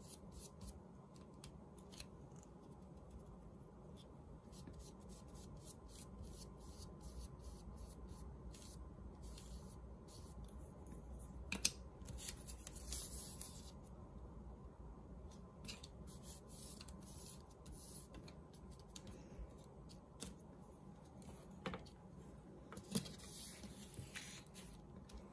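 Faint handling of paper strips: scattered light ticks and taps as the paper is laid and pressed down by hand, with short stretches of rustling about halfway through and again near the end, and a couple of sharper clicks.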